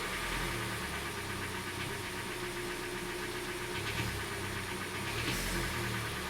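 Hyundai Elantra's 1.8-litre G4NB four-cylinder petrol engine running with a knock. The mechanic thinks a piston is most likely the cause, though it could also be the piston pin, the crankshaft or a hydraulic lifter.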